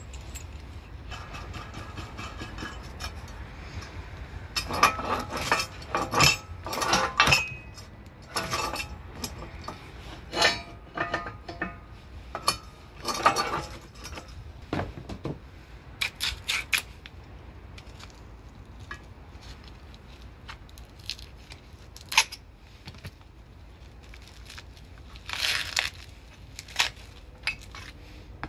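Steel bolts, nuts, a pin and frame parts of a 6-ton hydraulic shop press clinking and clattering against each other during hand assembly, in irregular bursts that are busiest in the first half.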